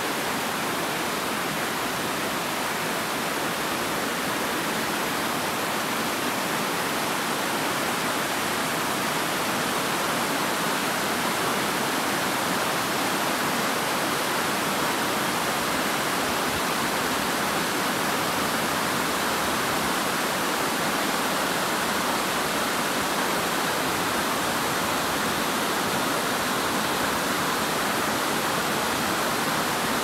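Steady rushing of water cascading over stepped rock ledges into a shallow stream, an even hiss with no breaks.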